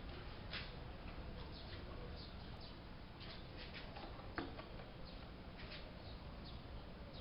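Faint, scattered light clicks and ticks from handling small objects, over a steady low hiss, with one sharper click about four and a half seconds in.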